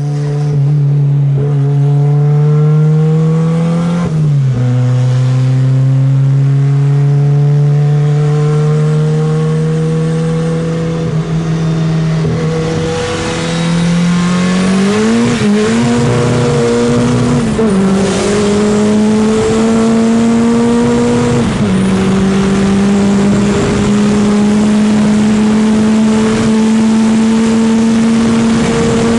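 Engine at full throttle at very high speed, its pitch climbing slowly through each long pull and dropping sharply at each upshift, about four shifts in all, with heavy wind rush growing louder as speed builds.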